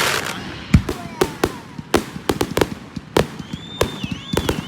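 Fireworks and firecrackers going off: a quick, irregular string of sharp bangs and cracks, the loudest about three-quarters of a second in.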